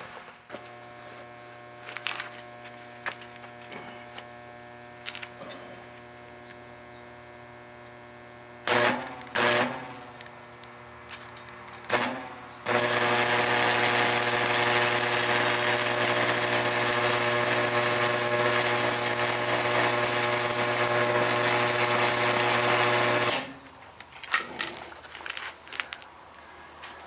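Marquette 100 AC stick welder humming once switched on, with a few short arc strikes near the middle, then about ten seconds of steady crackling, sizzling arc as the electrode welds scrap steel. The arc and the hum cut off together.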